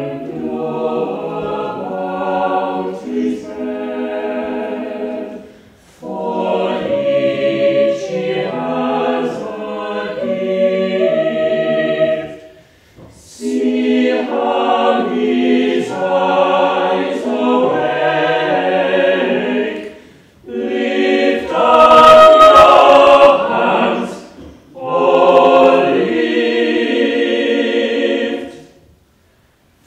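Small mixed chamber choir singing in several parts, in five phrases with short breaks between them. The fourth phrase is the loudest, and the singing stops shortly before the end.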